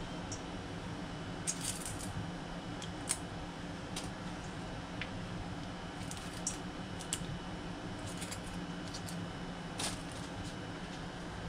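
Pickleweed's succulent stems being snapped and stripped by hand in a plastic colander: irregular small crisp snaps and rustles, the sharpest near the end, over a steady low hum.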